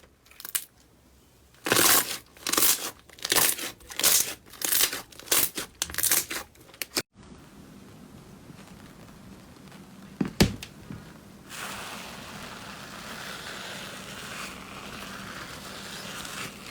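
Slime being squeezed and pressed by hand, giving a run of about nine crinkly, crackling squishes in a steady rhythm. It then breaks off, and after a single click a softer, continuous crackle follows.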